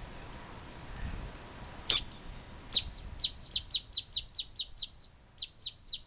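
A grackle calling: one sharp call, then a rapid run of short, high, slightly falling notes at about four a second. The run breaks off briefly and three more notes follow near the end.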